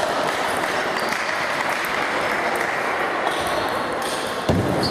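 Table tennis balls clicking off bats and tables from several matches at once in a sports hall, over a steady murmur of voices. A dull thump comes near the end.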